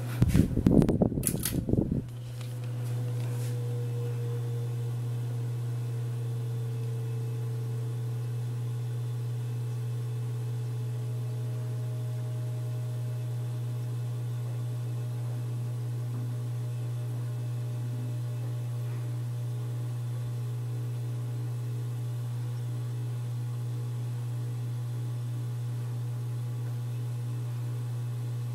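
2003 SMC 36-inch ceiling fan (model H36UL) running with a strong, steady electrical motor hum, which the owner blames on its Chinese-made capacitors. For the first two seconds there is a loud burst of knocking and rustling. After that a fainter tone slowly sinks in pitch while the hum carries on.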